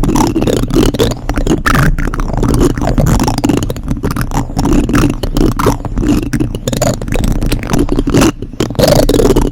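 Plastic spoons rubbed and scraped against a microphone, giving a loud, continuous, irregular scratchy rubbing with quick strokes and muffled bumps.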